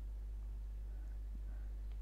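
Steady low hum of background room tone, with a couple of very faint ticks about one and a half seconds in.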